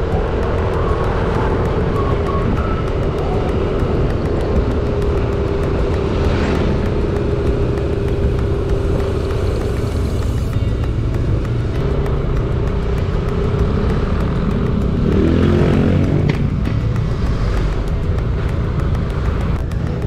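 Yamaha motor scooter riding along a road: wind rushing over the handlebar-mounted camera's microphone and road noise over the engine, with a brief louder swell about three quarters of the way in.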